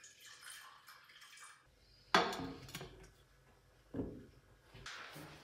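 Liquid poured from a coffee carafe into a small saucepan, faint, with three sudden knocks that fade out.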